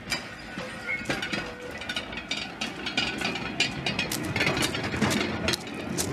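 Metal wheels of a hand-pushed canoe cart rolling along narrow rails, with a steady rumble and irregular clicks and clinks from the wheels and loaded gear.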